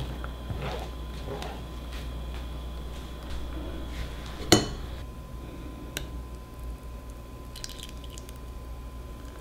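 A spatula scrapes and squishes thick cheesecake batter through a metal mesh sieve into a stainless steel bowl. About four and a half seconds in comes a single sharp metallic clink of kitchenware, then a lighter tap at six seconds, over a steady low hum.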